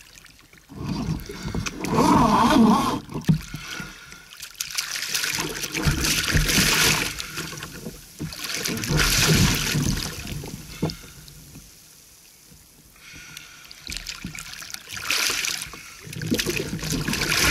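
A hooked fish thrashing at the surface beside a kayak, splashing in several bursts a few seconds apart, with a lull about two-thirds of the way through.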